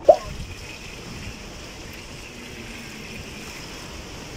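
A steady rushing noise, with a single short, sharp high sound right at the start.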